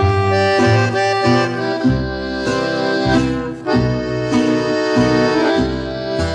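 Instrumental norteño waltz led by accordion, playing held melody notes over a changing bass line.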